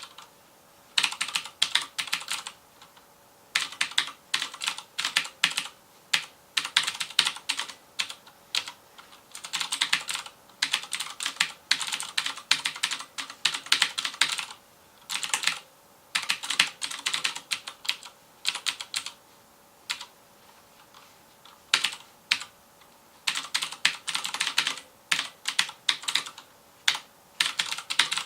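Typing on a FILCO Majestouch Convertible 2 mechanical keyboard with clicky Cherry MX Blue switches: fast runs of keystrokes in bursts of a second or two, with short pauses between and a longer pause of about two seconds about two-thirds through.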